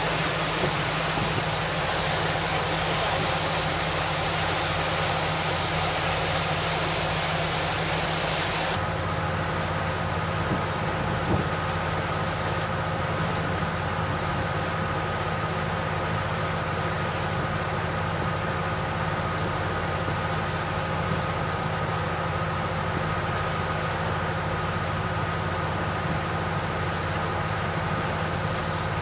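A sports cruiser's engine running steadily while underway, a constant drone under a rush of water and wind. The hiss drops suddenly about a third of the way in, and the engine drone carries on.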